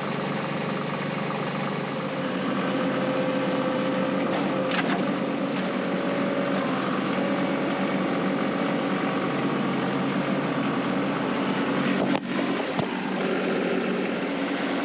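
Compact tractor engine running steadily while its front loader sets a round hay bale into a ring feeder; the engine note rises a little about two seconds in. A single sharp knock comes near the end.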